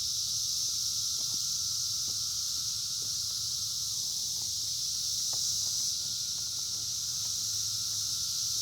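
A steady, high-pitched insect chorus shrilling without a break, with a few faint clicks scattered through it.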